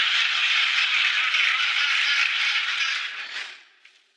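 Sitcom studio audience reacting with a burst of crowd laughter and clapping that sets in at once and fades out after about three and a half seconds.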